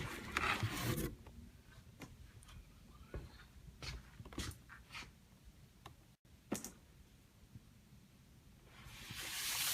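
Cardboard keyboard box and packaging being handled: scattered light taps, clicks and scrapes, busier in the first second, with a longer sliding scrape swelling near the end.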